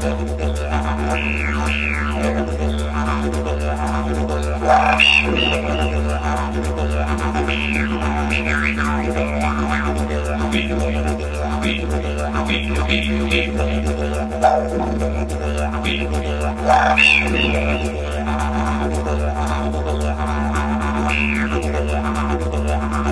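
Didgeridoo playing a continuous low drone, with higher calls sweeping up and down over it again and again. Sharp accents come about 5, 14 and 17 seconds in.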